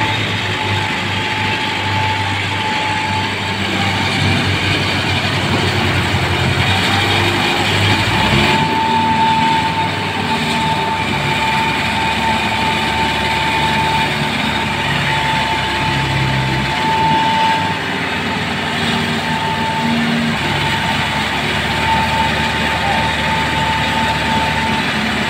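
Mahindra Arjun tractor's diesel engine running under a heavy load, pulling trailers piled with sugarcane. Its pitch rises and falls a few times over a steady high whine.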